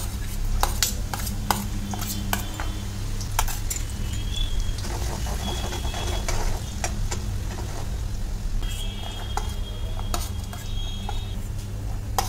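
Steel spatula and spoon stirring, scraping and clinking against an iron kadai and a steel plate as chopped vegetables go into hot oil, over the sizzle of garlic and ginger frying on a low flame. A steady low hum runs underneath.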